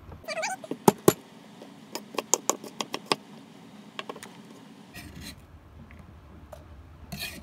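Chef's knife chopping garlic on a wooden cutting board: two sharp knocks about a second in, then a quick run of about seven chops, with brief scrapes near the end.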